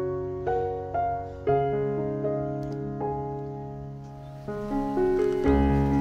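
Background piano music: slow, sustained notes over a held bass line.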